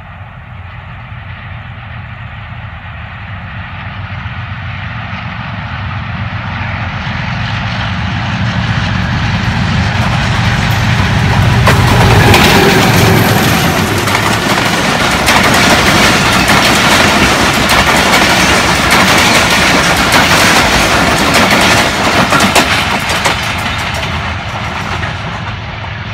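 Diesel locomotive hauling a passenger express: its engine hum swells as it approaches and passes close about twelve seconds in. The coaches then roll past with rapid clacking of the wheels over the rails, fading as the train moves away near the end.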